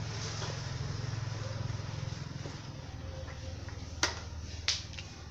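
A low, steady engine hum, then two sharp knocks about two-thirds of a second apart near the end as a plastic bucket is set down on the ground.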